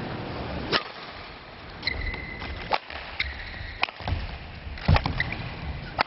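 Table tennis rally: sharp clicks of the ball off paddles and table, roughly once a second, with brief high squeaks of shoes on the court floor in between.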